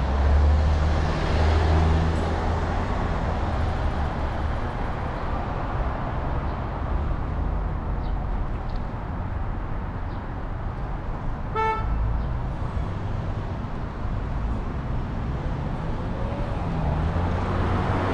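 Steady low rumble of traffic and transit noise, with one short horn toot about two-thirds of the way through.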